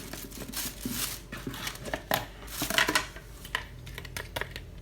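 A spoon scraping and clinking against a container while palm sugar is scooped out for the som tam. The scrapes are irregular, with a few sharp clinks about two and three seconds in.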